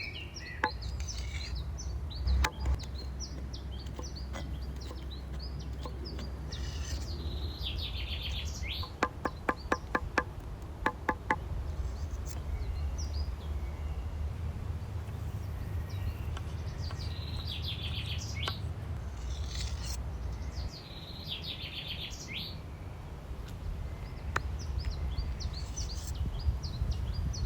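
Birds chirping outdoors over a steady low rumble, with a quick run of sharp, evenly spaced ticks about nine seconds in.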